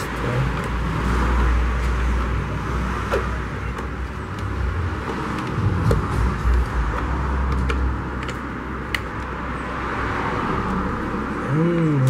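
A steady low rumble with a hiss over it, and a few light clicks and taps as the plastic blender base is handled and its screws and wires are worked with a screwdriver. Near the end a short low hum comes in.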